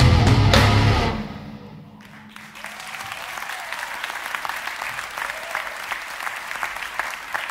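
A live rock band with electric guitars and drums ends a number, the final chord ringing away over about a second. About two seconds in, an audience starts applauding, steady clapping that carries on to the end.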